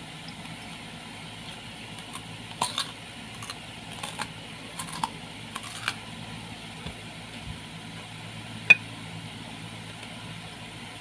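Close-up eating sounds: crisp bites and chewing clicks of raw fruit, clustered between about two and six seconds in, with one sharp click near the end. A steady low hum from an electric fan runs underneath.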